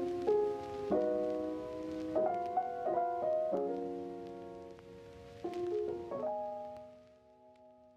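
Background piano music: soft sustained chords changing about once a second, fading out near the end.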